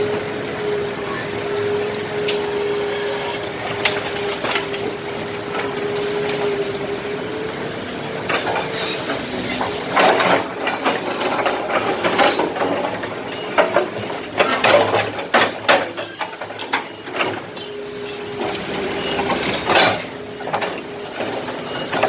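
Excavator at work: a steady machine hum with a held tone, broken from about ten seconds in by a run of clanks, knocks and scraping as the bucket digs into and handles broken concrete, before the steady hum returns near the end.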